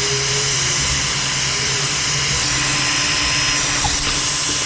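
Black & Decker heat gun running steadily, its fan blowing a loud rush of hot air with a low motor hum, shrinking heat-shrink tubing over an extension cord splice.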